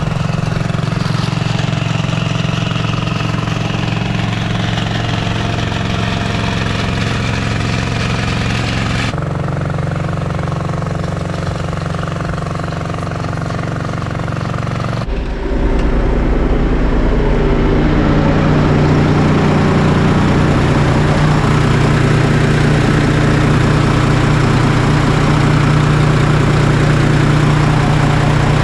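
Engine running steadily with a low drone and rushing noise above it. The sound changes abruptly twice, about nine and fifteen seconds in, and after the second change the engine is louder and deeper.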